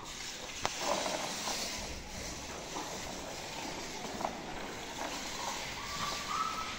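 Cattle feed trough being swept out with a long-handled broom: a steady scratchy scraping and rustling of leftover feed along the manger. A sharp knock comes about two-thirds of a second in, and a few short squeaky tones come near the end.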